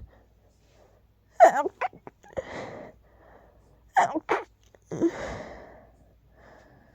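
A person sneezing twice from a nasal tickle, about two and a half seconds apart. Each sharp sneeze is followed by a longer breathy exhale.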